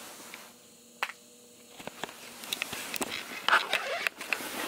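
Scattered light clicks and ticks over a faint hiss, with a denser cluster of small knocks about three and a half seconds in.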